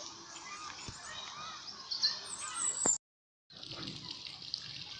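Aviary birds chirping and calling over a background hiss: repeated short up-and-down calls and higher thin chirps. The sound drops out completely for about half a second around three seconds in.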